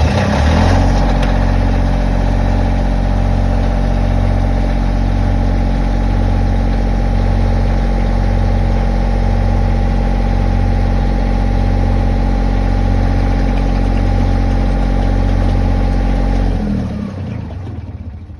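Northern Lights marine diesel generator running steadily at constant speed while it draws antifreeze through its cooling-water intake to winterize it. It is shut off about sixteen seconds in and winds down over the next two seconds.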